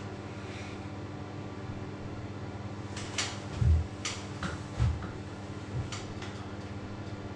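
A few knocks and clicks as a person shifts on a chair and sets his feet up on a second chair, the two loudest knocks coming about three and a half and five seconds in, over a steady low hum.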